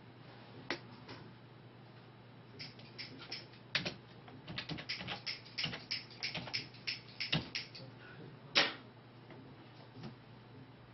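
A run of quick, irregular light clicks and taps lasting several seconds, with one louder click near the end, over a steady low hum.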